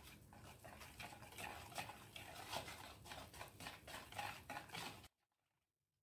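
Wire whisk stirring a thin besan (gram-flour) batter in a plastic bowl: a quick run of faint strokes, about three a second, that stops abruptly about five seconds in. The batter is being beaten smooth so that no lumps form.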